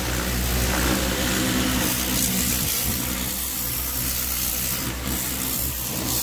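Electric high-pressure plunger-pump car washer running steadily: the motor and pump hum under the hiss of the water jet spraying.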